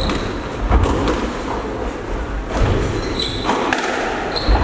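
A squash rally: a series of sharp knocks from the racket hitting the ball and the ball hitting the walls, over heavy thudding footwork on the wooden court floor. Court shoes give a few brief high squeaks on the floor.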